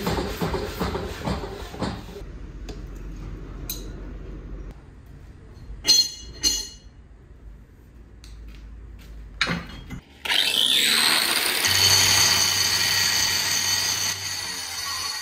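A power hammer strikes hot steel in rapid repeated blows for the first couple of seconds, followed by a few sharp metal clanks. About ten seconds in, an angle grinder spins up with a rising whine and cuts into a steel plate, running loud and steady with a high whine.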